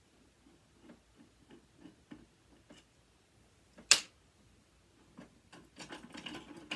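Small metal clicks and taps of a screwdriver working on the device's metal parts, with one sharp snap about four seconds in, then a quick run of light rattling clicks near the end as a part works loose.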